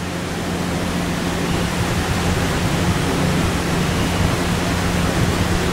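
Steady hiss with a low hum underneath.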